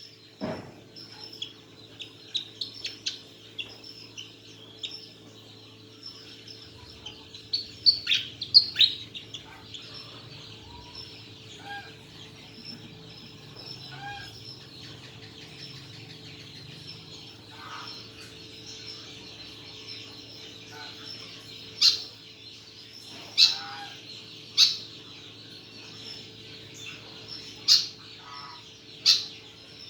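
Pied fantail calling: sharp high chirps and quick falling notes that come in bunches, the loudest about eight seconds in and then as separate loud notes over the last eight seconds. A steady low hum runs underneath.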